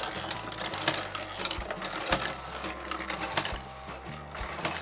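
3D-printed PLA marble run in motion: a small electric motor turns the gear lift mechanism with a steady low hum while marbles click and rattle irregularly along the plastic tracks.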